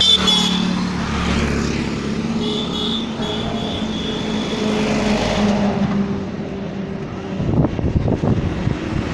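Engine of a moving road vehicle running steadily as it drives along. About seven and a half seconds in, wind starts buffeting the microphone in uneven gusts.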